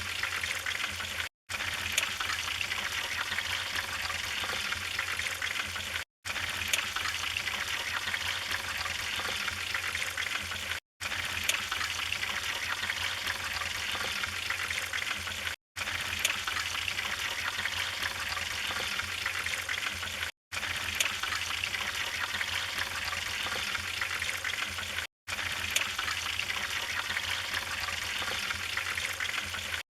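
Wood fire burning with a steady hiss and scattered crackles, cut by a brief gap of silence about every five seconds.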